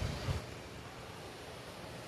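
Steady hiss of ocean surf washing on a shore, with low wind buffeting on the microphone in the first half second.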